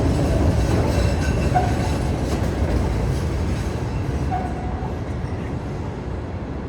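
Elevated 'L' train running past on steel elevated tracks: a loud, steady rumble with brief wheel squeals, fading gradually as it moves away.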